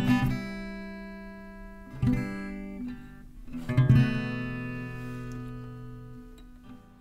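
Acoustic guitar strumming the closing chords of a song: a chord near the start, another about two seconds in, and a last strummed chord about four seconds in that rings out and fades away.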